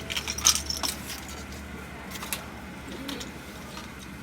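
A few light clicks and knocks, several in the first second and two more a little past the middle, over the low steady hum of a car cabin.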